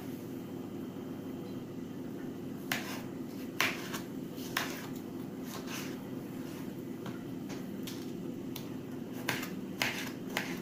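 Kitchen knife cutting tomatoes on a plastic cutting board: several sharp taps of the blade hitting the board, irregularly spaced, over a steady low hum.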